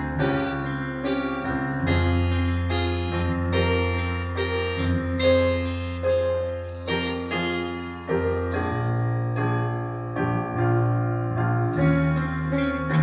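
Live band's instrumental passage led by grand piano chords, with long low bass notes held underneath that change about two-thirds of the way through and again near the end.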